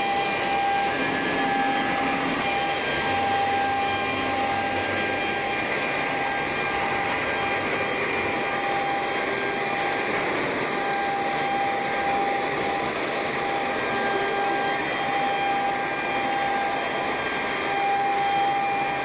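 A 1530 CNC wood router running steadily: even machine noise with a steady high whine over it.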